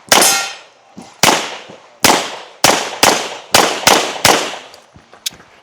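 Competition pistol fire during a USPSA stage run: about eight loud gunshots, irregularly spaced roughly half a second to a second apart, each trailing off in a short echo. Fainter sharp clicks follow near the end.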